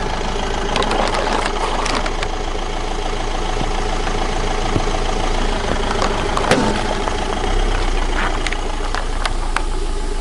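Car engine running steadily, with scattered sharp cracks and crunches as objects are crushed under its tyres, the loudest crack about two thirds of the way through.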